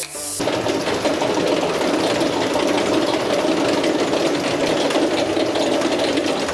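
Roller coaster train being hauled up the lift hill: the lift mechanism clatters fast and continuously, starting about half a second in.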